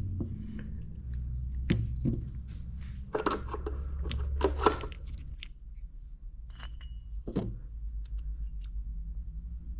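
Clinks and taps of small metal parts and tools being handled, in irregular clusters over a low steady hum.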